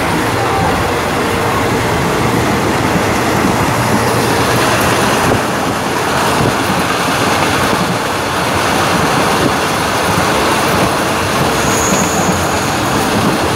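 Passenger train coaches running on the rails: a steady, loud rush of wheel and rail noise with some clatter. A brief high squeal comes near the end.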